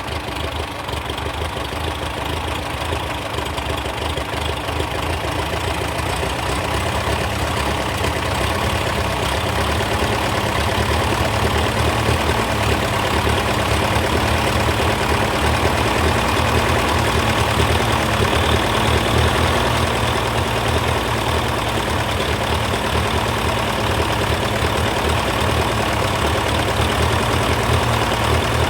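Massey Ferguson TO35 tractor engine idling steadily, with no loud ticking: the tick it had is cured.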